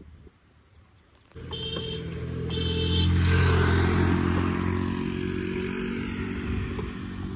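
Motor scooter passing close by: its engine comes in suddenly, rises to a peak and fades as it rides away. Two short high beeps sound as it approaches.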